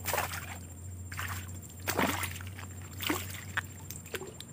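A hooked small snakehead thrashing at the water's surface as it is pulled in on a pole line, making a series of about five splashes roughly a second apart.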